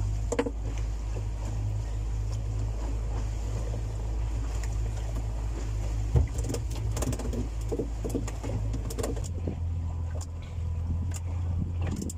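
Boat motor running steadily under way while trolling, its low hum shifting slightly about nine seconds in. Scattered clicks and a sharp knock about halfway through.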